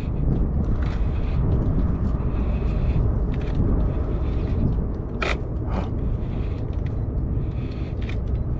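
Fishing reel being cranked against a heavy load, with its gears whirring over a steady low rumble, and two sharp clicks a little over five seconds in.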